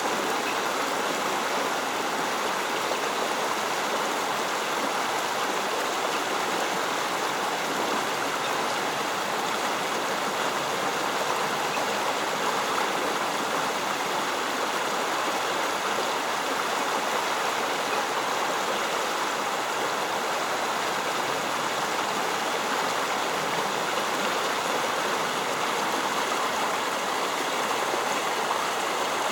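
Creek water flowing in a steady rush.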